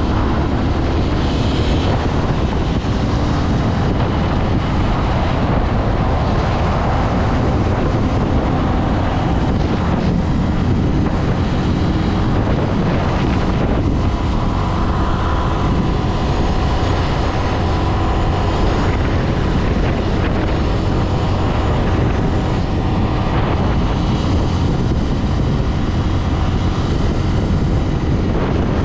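Steady wind rush over the microphone and the running of a Honda CB 250F Twister's single-cylinder engine cruising at highway speed, with tyre and road noise.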